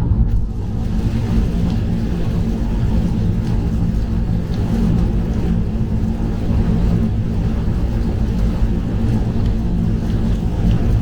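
Mazda3 cruising at expressway speed on a rain-soaked road, heard from inside the cabin with a window cracked open: a steady low drone of tyres and engine under an even hiss of rain and spray, with a few faint ticks.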